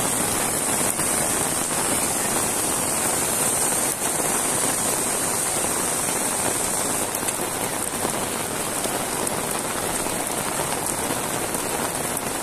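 Heavy rain falling steadily, an even hiss of countless drops.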